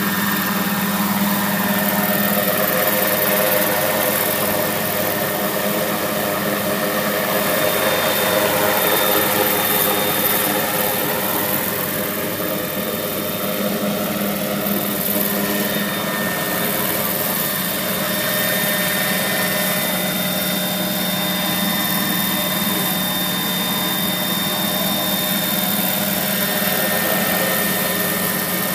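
Scale radio-controlled model helicopter running: a steady engine whine over rotor noise, continuous, swelling and easing slightly as it moves.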